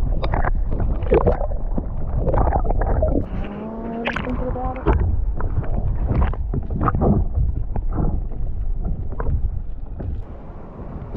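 Paddle strokes splashing in the sea from a paddle board, over a low rumble of wind and water on the microphone.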